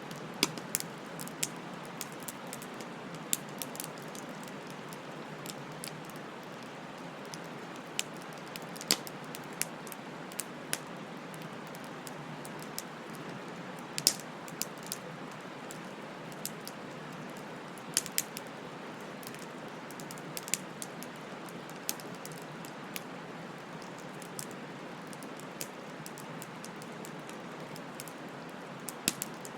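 Wood fire crackling: irregular sharp pops and snaps over a steady hiss, with the loudest pop about 14 seconds in.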